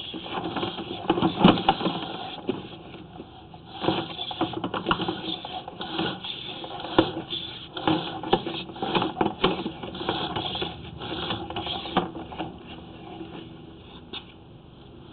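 Sewer inspection camera's push cable and reel rattling and clicking in irregular bursts as the camera is pulled back through the drain pipe, dying away about twelve seconds in, with one last click near the end.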